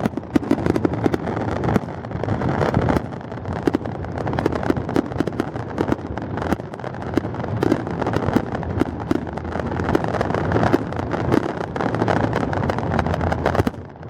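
Fireworks going off: many short bangs and crackles in quick succession over a steady low rumble.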